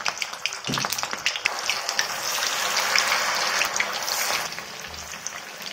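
Hot oil sizzling and crackling in a pan, a hiss with many small pops that grows louder through the middle and dies down near the end.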